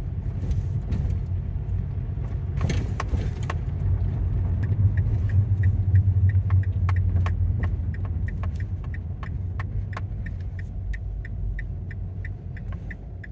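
Car cabin noise while driving: a steady low engine and road rumble that swells about midway and eases off toward the end as the car slows. A few sharp knocks come around three seconds in, and a quick, even light ticking runs through the second half.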